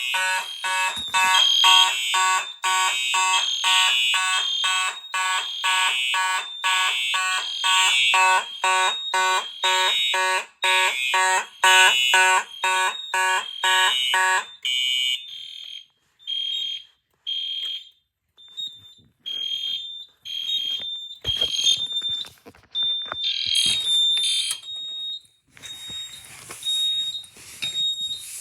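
Fire alarm horn sounding in quick, even pulses with a harsh buzzing tone, cutting off about halfway through. A high-pitched electronic beep keeps repeating on and off after it, with scattered clicks and knocks near the end.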